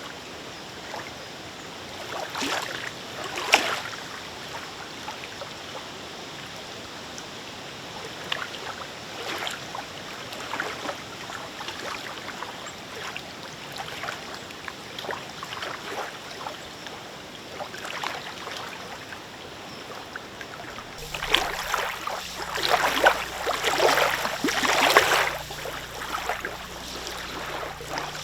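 Small lake waves lapping and splashing in a breeze, irregular splashes over a steady wash of wind and water. About three quarters of the way through the splashing grows louder and busier and a low wind rumble comes in.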